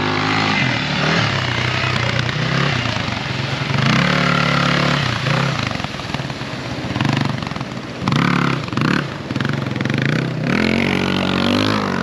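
Motorcycle engine revving up and dropping back several times as the bike is ridden through a shallow stream.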